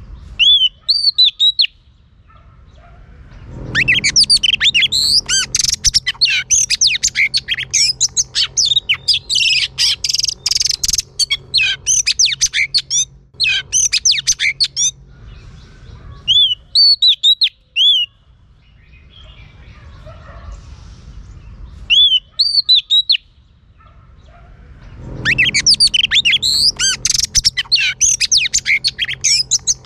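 Oriental magpie-robin, a female, singing: short phrases of a few sharp whistled notes right at the start and again at about 17 and 22 seconds, and long runs of fast, varied warbling song from about 4 to 15 seconds and again from about 25 seconds on.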